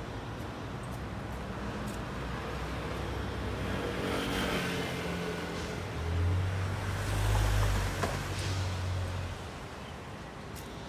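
City road traffic: a steady hiss of cars driving past, with one car passing close about four seconds in. A heavier vehicle's low engine rumble is loudest from about six to nine seconds in, then fades.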